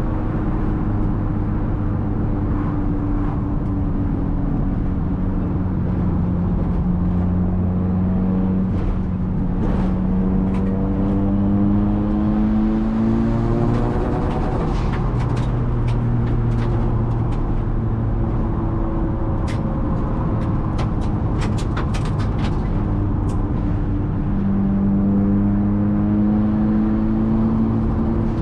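Nissan S13's turbocharged SR20DET four-cylinder engine running under way, heard from inside the cabin. Its pitch sinks slowly, then climbs as it pulls, breaks off about halfway through, and steps up again near the end.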